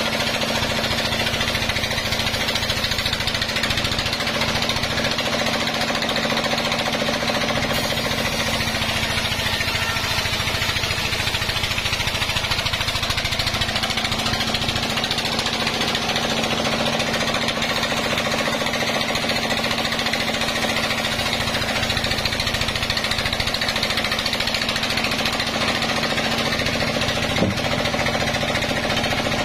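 Vertical band sawmill running steadily, its blade ripping lengthwise through a log, over a constant hum. There is a single short knock near the end.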